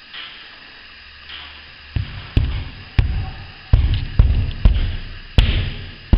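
Hand knocking up against an old lath-and-plaster ceiling: about eight dull knocks, roughly two a second, each with a booming low end, starting about two seconds in. He is sounding out where the plaster has broken away from the laths.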